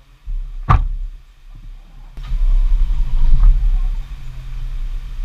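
A motor vehicle's low rumble, with one sharp knock just under a second in; from about two seconds in the rumble grows louder and steadier with a hiss over it.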